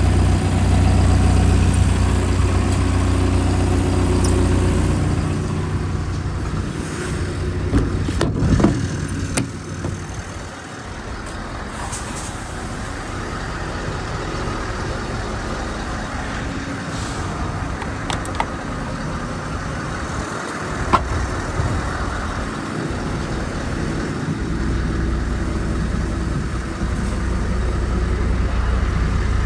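Liebherr R914 Compact excavator's diesel engine running steadily, loud at the start and end and fainter through the middle, with a few short knocks about 8 and 21 seconds in.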